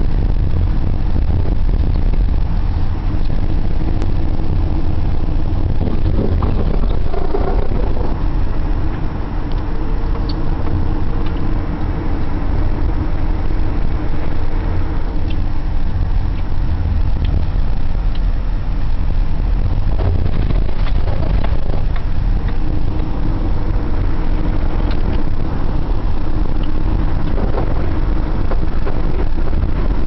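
Car driving, heard from inside the cabin: a loud, steady low rumble of engine and road noise, with a faint engine hum coming and going.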